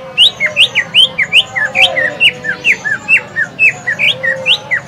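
Male greater green leafbird (cucak ijo) singing loudly: a fast, unbroken string of short, sharp whistled notes, about five a second, each sweeping up or down in pitch.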